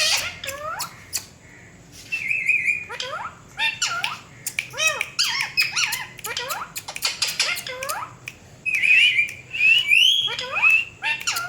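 Ringneck parrot calling: many quick rising and falling whistled chirps, with harsh, drawn-out squawks about two seconds in and again later on.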